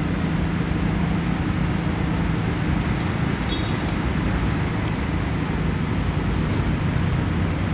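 Congested road traffic: a steady low engine hum from a coach and cars idling or crawling close by.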